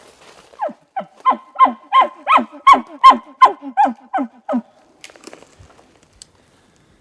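A loud animal call: a quick run of about a dozen honking notes, roughly three a second, each dropping in pitch, swelling in the middle of the run and then fading out.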